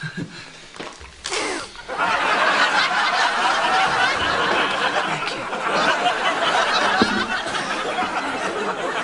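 Audience laughing, swelling up loudly about two seconds in and carrying on as a dense crowd of laughter.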